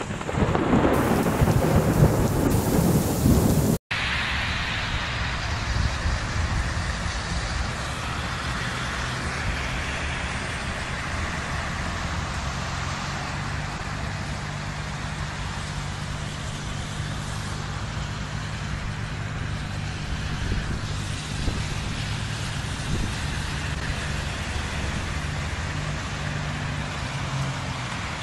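A loud rumble of thunder with rain in the first few seconds, cutting off abruptly. Then rain falls steadily. From about halfway on, a low steady hum of vehicle engines on the road runs under the rain.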